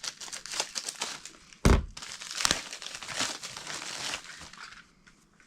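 Packaging being crinkled and torn open by hand, with a sharp knock about one and a half seconds in and another a second later; the rustling dies away near the end.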